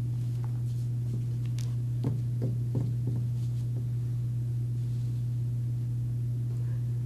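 A steady low hum, with a few faint light knocks about two to three seconds in.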